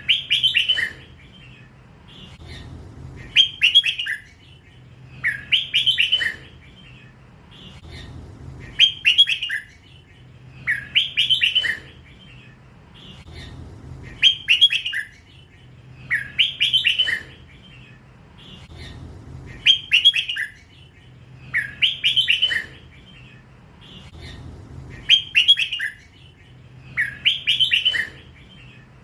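Red-whiskered bulbul singing: a short, bright warbled phrase repeated about every two to three seconds.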